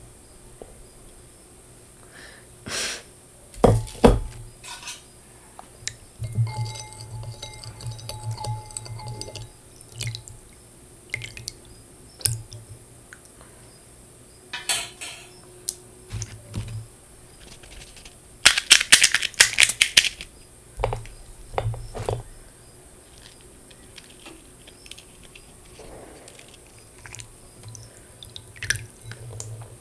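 Spoon clinking, knocking and scraping against a bowl as chilli powder is stirred in, in scattered strokes with a quick run of clinks a little past halfway.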